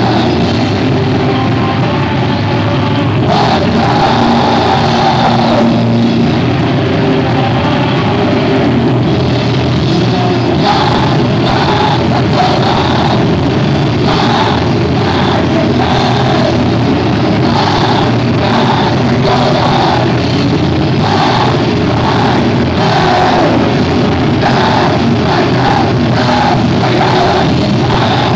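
Live screamo band playing loud, dense music, with a pounding beat that comes through clearly from about ten seconds in.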